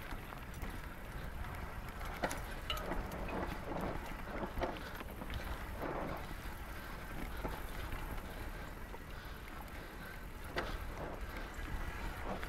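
Mountain bike rolling downhill on a dirt and gravel trail: tyres crunching over the ground, with irregular clicks and rattles from the bike over bumps. Wind rumbles on the microphone throughout.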